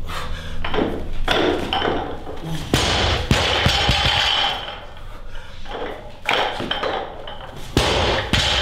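Barbell loaded with rubber bumper plates being handled: a series of knocks and thuds with metallic pings that ring on for a second or two.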